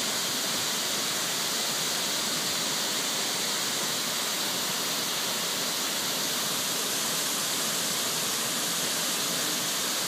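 Steady rush of a tall, wide waterfall pouring in many strands into its plunge pool.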